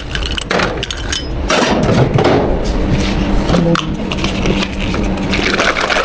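Drink-making clatter at a milk tea counter: many quick knocks and clinks of cups, containers and utensils being handled. A low steady hum joins about three seconds in.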